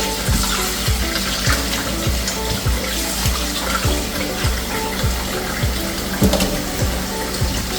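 Kitchen tap running steadily into a sink where raw chicken wings are being rinsed in fresh water. Background music with a steady beat plays under it.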